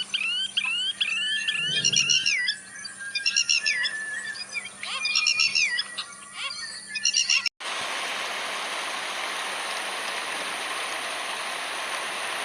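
Forest birds calling, with repeated rising whistled notes and bursts of rapid high chirps over a steady high insect-like drone. About halfway through it cuts off abruptly to the steady rush of a mountain stream.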